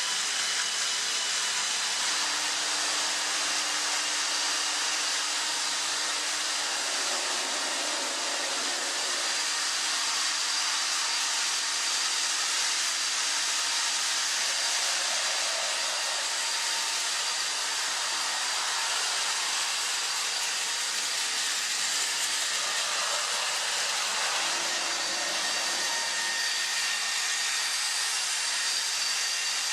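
Battery-powered Plarail toy trains running on plastic track: a steady whir of small electric motors and gears with a constant hiss from the wheels on the track.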